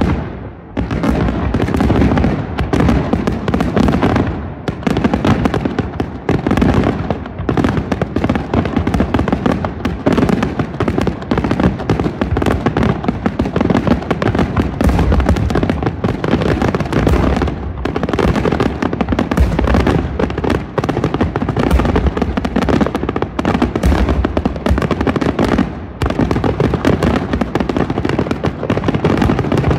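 Aerial fireworks display: a dense, continuous barrage of shell bursts and booms overlapping with hardly a pause, with brief lulls about four seconds in and again near the end.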